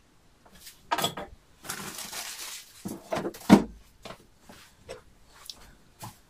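Kitchen handling noises: knocks and clatters of a utensil and dishes being put down, with a short rustle about two seconds in. The loudest is a single knock about three and a half seconds in.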